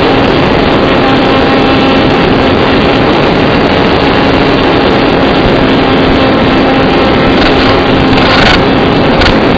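Electric motor and propeller of an AR Wing Mini RC flying wing running at a steady pitch under heavy wind noise, with a few short gusts of wind rush near the end.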